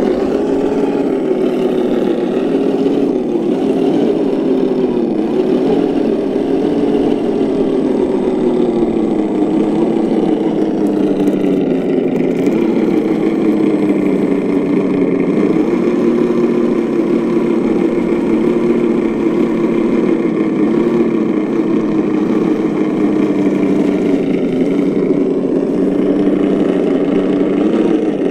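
Engine sound from a Reely sound module on an Axial SCX10 II Jeep Wrangler 1:10 RC crawler, played through its speaker as the crawler drives over grass and up a gravel mound. It runs steadily, with small rises and falls in pitch.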